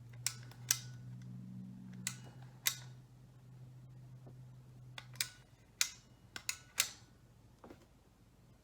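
Sharp plastic clicks and taps from handling a small toy belt buckle and its packaging, a dozen or so irregular knocks, over a low hum that stops about five seconds in.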